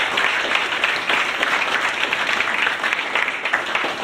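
A roomful of people applauding: many hands clapping in a steady, dense patter.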